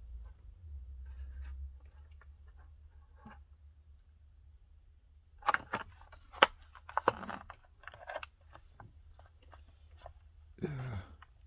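Crinkling and sharp clicking of a plastic blister-card package as a carded Hot Wheels car is handled, in a cluster of a few seconds about halfway through.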